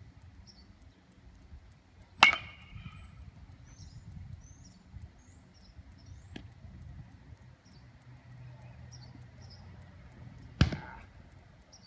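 Metal baseball bat hitting a ball twice, about eight seconds apart: each a sharp ping, the first with a short ring.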